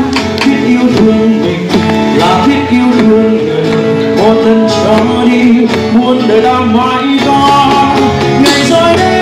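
Live acoustic band music: a male singer with acoustic guitar strumming and plucked strings.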